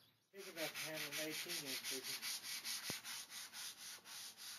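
Hand sanding of an MDF subwoofer enclosure's side seam, rapid back-and-forth strokes at about four to five a second, smoothing the joint flush. A wavering tone runs underneath for the first couple of seconds, and there is a single sharp click midway.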